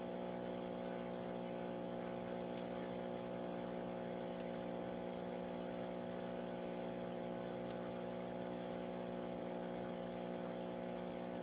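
A steady, unchanging mechanical hum made of several fixed tones, with no rise, fall or breathing rhythm.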